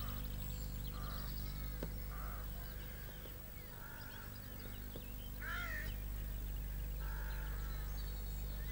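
Wild birds calling: higher chirps and trills, and several harsher caw-like calls, the loudest about five and a half seconds in, over a steady low hum.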